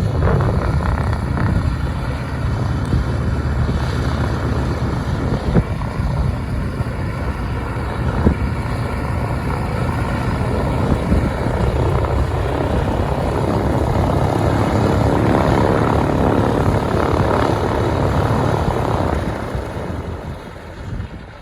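Beechcraft JRB-6's twin Pratt & Whitney R-985 radial engines and propellers running at close range, steady, then fading near the end.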